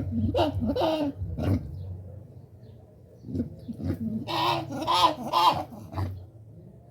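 Collared peccary calls: two short calls and a brief third in the first two seconds, then three louder calls in quick succession around four to five seconds in, over a steady low hum.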